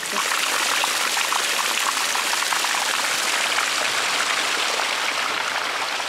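Water pouring out of a plastic pipe and splashing into a small ditch, running off down it: a steady rushing splash.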